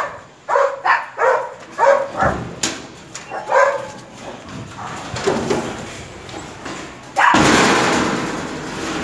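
Dogs barking, a run of short barks in the first four seconds. About seven seconds in, a loud rushing noise takes over.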